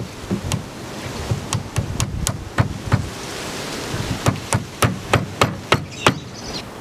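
Rubber mallet knocking on the back of a teak garden bench: a run of sharp wooden knocks. They come irregularly at first, then settle to about three a second in the second half.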